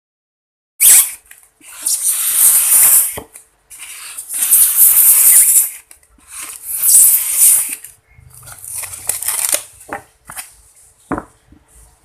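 Four loud bursts of rustling, scraping noise of about a second and a half each, with short gaps between, then a few sharp clicks near the end.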